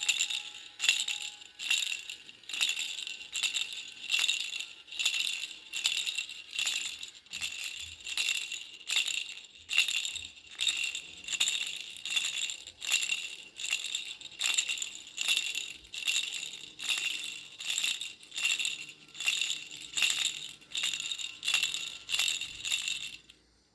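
Pink butterfly baby rattle being shaken steadily, about one and a half shakes a second, each shake giving a bright ringing jingle. The shaking stops just before the end.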